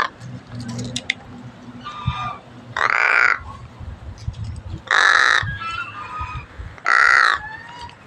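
Pet crow cawing: three loud, harsh caws about two seconds apart, with a softer call just before them.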